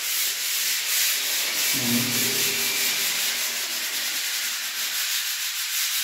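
Sandpaper being rubbed over a dried wall putty coat by hand: a steady, dense rasping hiss.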